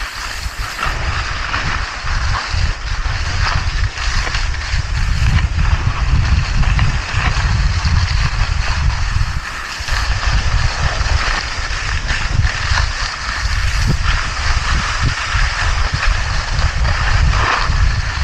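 Wind buffeting the microphone with a heavy low rumble while skiing downhill, over a steady rough hiss of skis scraping across hard, icy packed snow.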